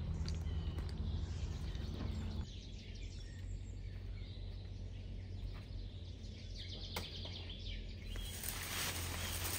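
Outdoor ambience: a steady low hum under a faint haze of background noise, with a brief rapid high-pitched chirping trill about seven seconds in.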